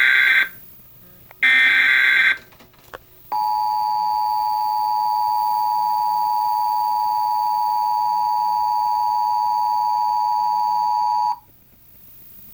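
Emergency Alert System test tones: the end of one harsh, buzzing digital header data burst and then a second one, followed by the steady two-tone EAS attention signal. The attention signal holds for about eight seconds and cuts off sharply about a second before the end.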